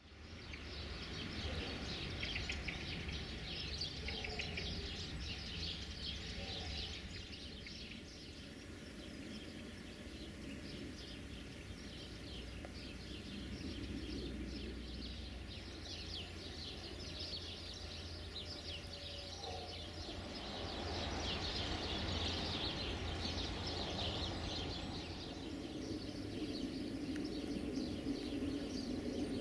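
Many small birds chirping and twittering throughout, over a steady low rumble. About two-thirds of the way through, a lower droning sound comes in and the sound grows a little louder.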